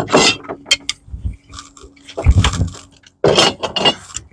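Work noise from handling a screen door and tools: light clinks and knocks, with two louder scraping, rustling passages about two seconds in and again a little after three seconds.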